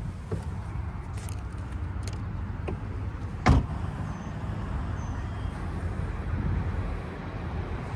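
Steady rumble of road traffic, with one sharp knock about three and a half seconds in.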